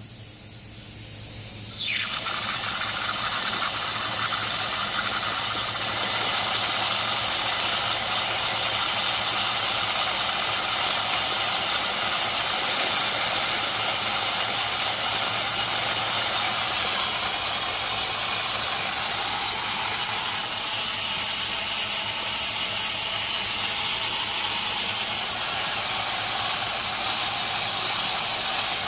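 Water and compressed air spraying under pressure out of an Ingersoll Rand air compressor tank's drain valve: a loud, steady hiss that starts abruptly about two seconds in and grows a little stronger a few seconds later. The tank is blowing down water that built up over years without draining.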